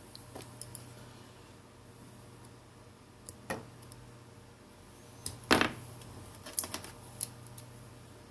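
Scattered small clicks and taps of phone parts being handled during reassembly, the loudest about five and a half seconds in, over a faint steady hum.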